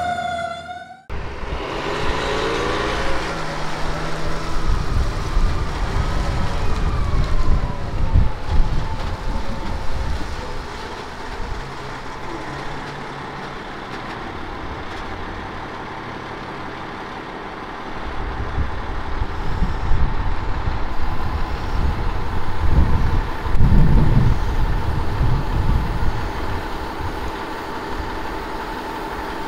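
Fire-rescue truck's diesel engine running on the station apron, swelling louder a few times as it is revved. A falling whine sounds early on, and a steady whine continues over the engine.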